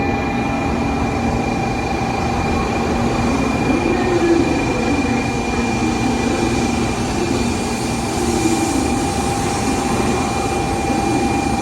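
Electric train sounds at a station platform: a steady rumble and hiss with two constant high whining tones.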